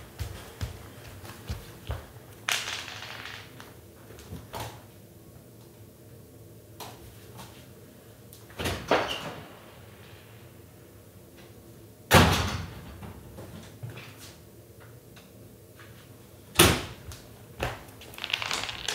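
A string of knocks and thuds over a steady low hum, with three loud bangs about nine, twelve and seventeen seconds in that ring on briefly.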